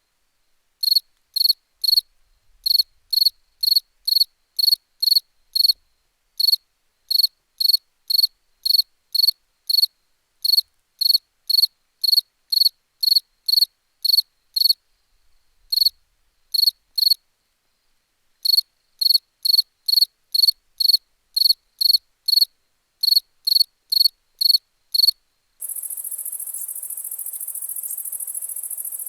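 Cricket chirping in short, evenly spaced high chirps, about two or three a second, in runs broken by brief pauses. Near the end it switches to a steady, continuous higher-pitched insect trill.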